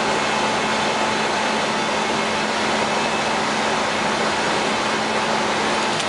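Steady flight-deck noise of an Airbus A320-200 airborne after take-off: a constant rush of air with a low hum and a fainter higher tone held level throughout.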